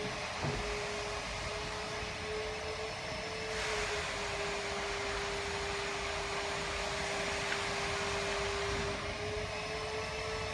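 A small electric motor running with a steady whine over a hiss.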